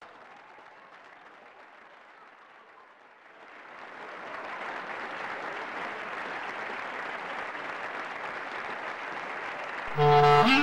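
Applause from a seated group, faint at first, swelling about three and a half seconds in and then holding steady. Near the end, loud tango music comes in.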